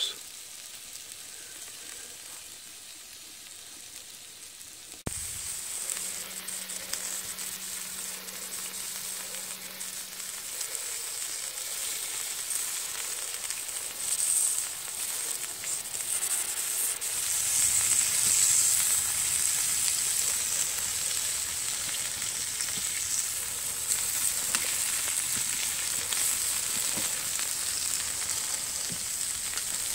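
Chicken sizzling on a hot cast-iron grill grate over a wood fire, a steady hiss that steps up louder about five seconds in.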